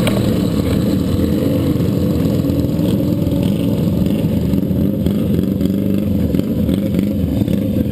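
Racing motorcycle's engine running steadily at low revs as the bike rolls slowly, heard close up from on the bike.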